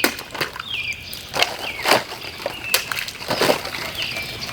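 Fully serrated Cold Steel Talwar folding knife slashing through water-filled plastic bottles: several quick, sharp cuts, each with a splash and slosh of water.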